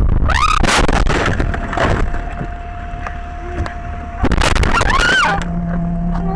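Car crashing into the back of a bus on a snowy road: a sudden loud impact and the crunch of the windshield glass breaking under a second in, then a second loud crash about four seconds in.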